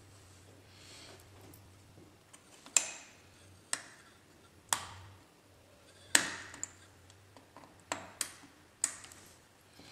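Sharp clicks and taps of small parts being handled inside an opened HP Pavilion dv6000 laptop: about seven at uneven intervals, the loudest a little under 3 seconds in and about 6 seconds in.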